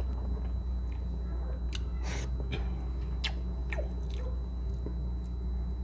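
A man chewing a mouthful of soft stewed milkfish close to the microphone: scattered wet mouth clicks and smacks, with a longer hissy smack about two seconds in, over a steady low hum.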